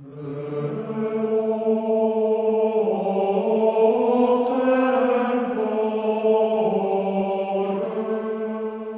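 Slow choral chant of long held notes, swelling in over the first second and shifting to new notes about three seconds in and again near the end.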